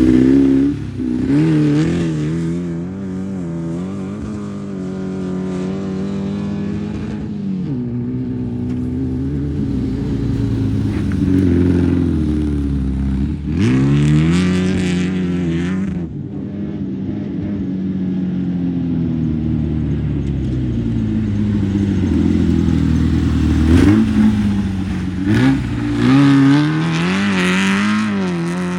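Off-road race vehicle engines revving hard and easing off, the engine pitch rising and falling again and again.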